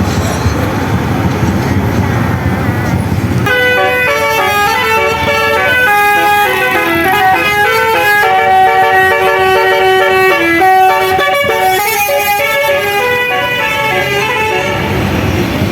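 A bus's Basuri musical air horn (telolet) playing a tune in held, stepped notes, several horns sounding together in chords. It starts about three and a half seconds in, after loud vehicle noise, and stops shortly before the end.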